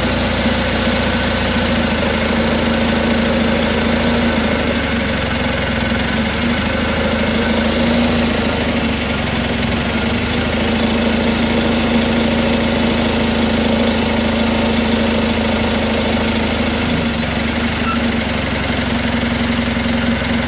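Garden tractor engine running steadily at constant speed, powering the homemade front loader's hydraulics while the bucket cylinder is worked.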